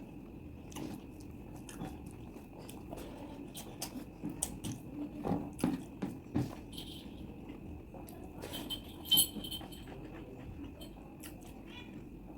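Close-miked chewing and wet mouth sounds of someone eating chicken curry with rice, with scattered smacks and clicks and one sharper click about three quarters of the way through. A faint steady high tone runs underneath.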